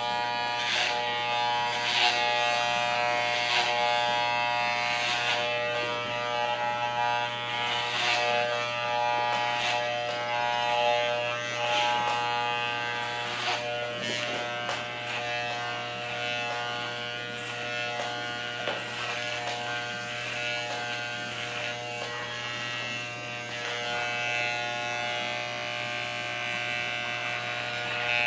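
Corded electric hair clippers with a size 3 guard buzzing steadily as they are run up through a boy's hair, with short clicks now and then.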